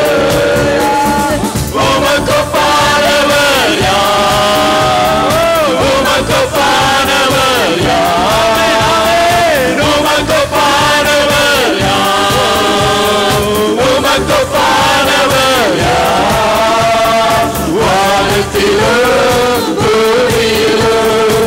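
A man singing a Tamil Christian worship song into a microphone, amplified through a PA, over instrumental backing with a steady drum beat.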